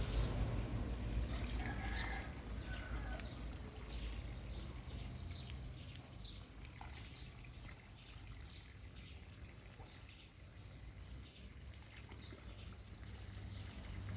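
Water trickling and dripping, with a low rumble in the first few seconds that fades.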